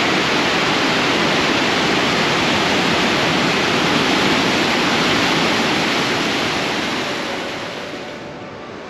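Atlantic Ocean surf: a steady, loud roar of breaking waves that fades down near the end.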